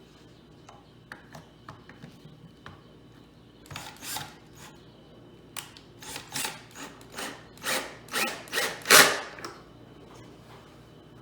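Hand work on an upholstered chair seat being covered with fabric over foam: a few light clicks, then a run of short scratchy rasping strokes that grow louder toward the end.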